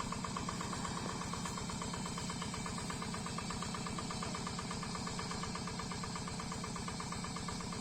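Yanmar single-cylinder diesel engine of a Quick G3000 Zeva hand tractor running steadily with a fast, even beat.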